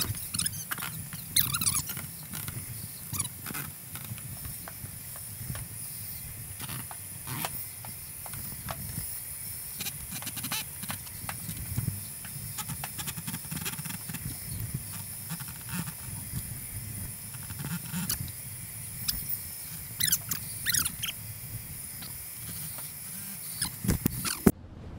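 Hand tools (pliers and a hammer) working at the edge of a wooden stage platform: scattered clicks, scrapes and a few short squeaks of metal on wood over a steady shop hum, breaking off briefly near the end.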